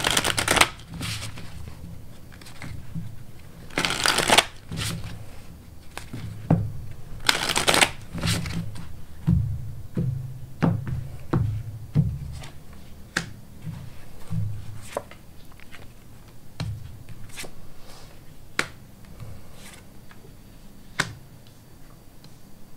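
Tarot cards being riffle-shuffled in three short bursts, then a string of light sharp taps as single cards are drawn and laid down on the table one at a time.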